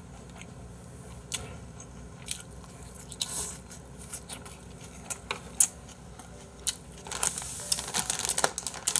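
Close-miked chewing and mouth noises of a person eating, with scattered sharp clicks and a denser crackly stretch near the end.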